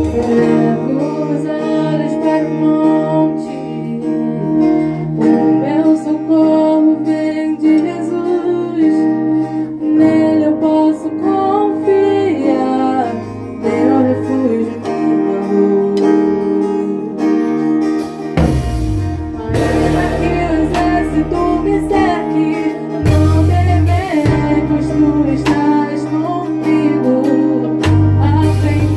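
Worship band rehearsing a song: guitar and held chords, with singing. Heavier low bass notes and sharp hits come in about two-thirds of the way through.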